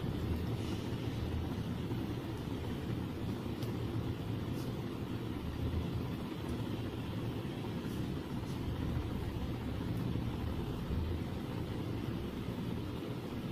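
Steady low rumble of background noise, with a few faint light clicks scattered through.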